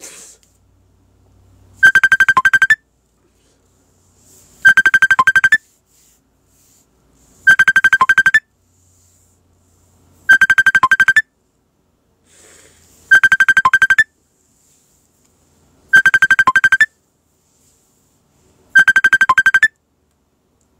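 Telephone ringtone, a rapidly trilling electronic ring that sounds in bursts of just under a second about every three seconds, seven times: an incoming call going unanswered.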